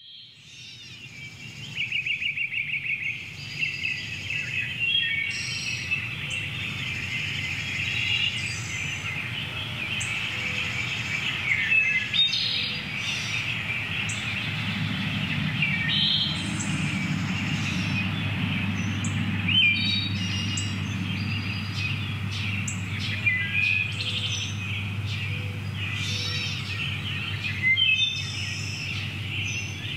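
Small songbirds singing and calling: overlapping high chirps, short trills and whistled notes, over a low steady rumble.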